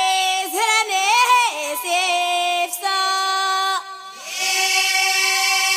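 Girls' voices singing an Amazigh ahwach chant, holding long notes that bend and slide in pitch, with no drum beat heard; the singing breaks off briefly about four seconds in and then resumes on a long held note.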